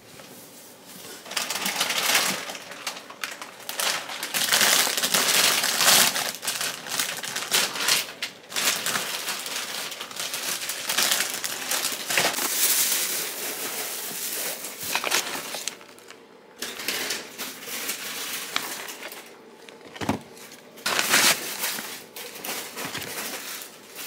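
Crisp crunching and paper crinkling from a crispy bagel and its wrapping being handled and eaten, in uneven bursts with a few short pauses.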